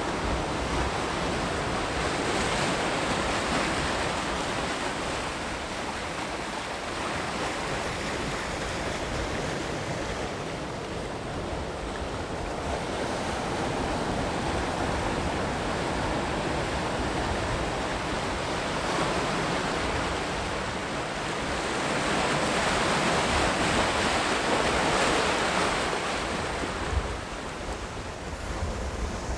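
Sea surf breaking and washing on the shore. It swells louder about two seconds in and again in the last third.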